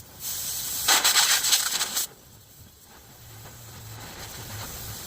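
A burst of hissing spray or air, about two seconds long, that cuts off suddenly; a faint low hum follows.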